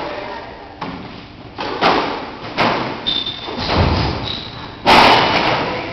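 Squash rally: the ball struck by rackets and hitting the court walls, about six sharp thuds spaced half a second to a second apart, each ringing in the enclosed court, the loudest near the end. Two short high squeaks come in between.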